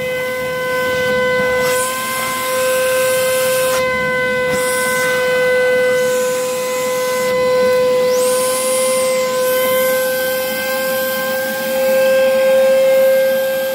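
Vacuum motor running with a steady high whine and a rush of air through the ribbed hose, sucking water off the soaked car floor pan. The air note briefly rises and falls about eight seconds in.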